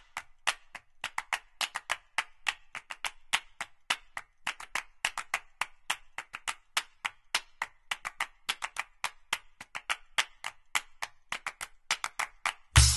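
Chef's knife chopping leafy greens on a plastic cutting board: quick, sharp clicks, several a second at an uneven pace. Music with a heavy bass comes in near the end.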